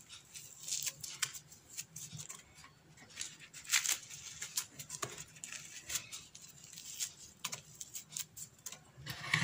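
Croissants being torn apart by hand, the flaky crust crackling and rustling in irregular short crackles, as the pieces go into a glass blender jar.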